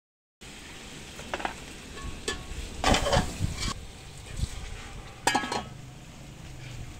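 A metal ladle clinks against an aluminium cooking pot as chicken is stirred, and water poured from a clay cup into the hot pot sizzles about three seconds in. A sharp clank a little after five seconds as the aluminium lid is set on the pot.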